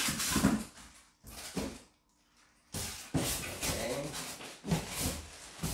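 Packaging being handled: a plastic bag rustling and a styrofoam packing block rubbing and squeaking against a cardboard box as it is pulled out, with a brief pause about two seconds in.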